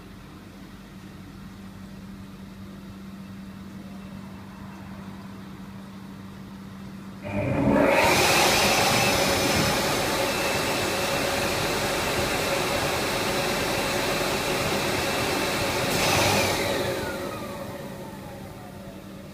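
A powerful electric blower switches on about seven seconds in and runs loud and steady with a whine for about eight seconds. It is then switched off and spins down with a falling whine. Before it starts, a low steady hum.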